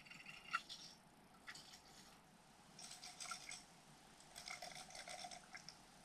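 Faint rattling tick of a Z-Man Chatterbait Elite Evo bladed jig's blade vibrating through the water, picked up underwater. It comes in two short runs, about three and about four and a half seconds in. The blade is a lot more quiet than a Jackhammer's.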